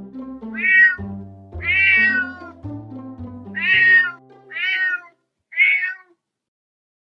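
Domestic cat meowing five times, each meow rising then falling in pitch, over soft background music that stops about five seconds in.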